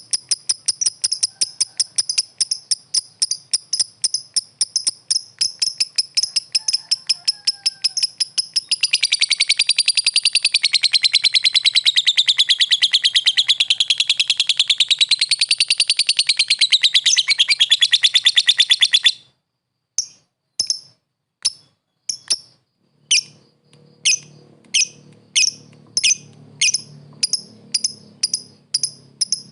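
Lovebird calling with rapid, high chirps that run into a long unbroken trill of about ten seconds, wavering up and down in pitch. The trill cuts off suddenly, and after a short gap single sharp chirps come about twice a second.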